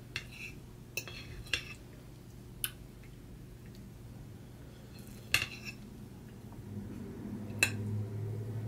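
Metal fork clinking against a dinner plate: about six sharp clinks spread over several seconds as food is picked up. A low hum comes in near the end.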